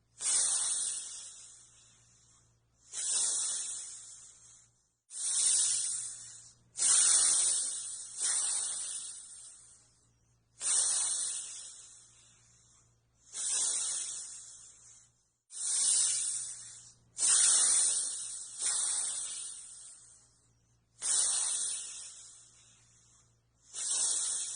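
Cobra hissing, about a dozen forceful hisses in a row. Each hiss starts sharply and fades away over a second or two, with short pauses between them.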